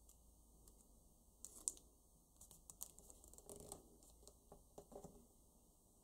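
Faint crinkling and rustling of a paper banknote being folded and creased by hand, in scattered small ticks, the sharpest a little over one and a half seconds in.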